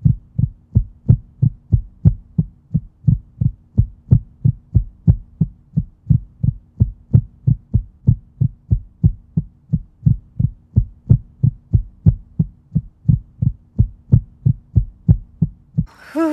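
Heartbeat sound effect: steady, evenly spaced low beats, a little over two pulses a second, over a faint steady hum. It cuts off abruptly near the end, where a voice begins.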